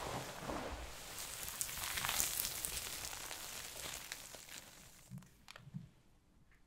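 Soap packed with starch crunching and crackling as it is pressed, a dense run of fine crisp crackles that is loudest about two seconds in and fades away over the last couple of seconds, with two soft thumps near the end.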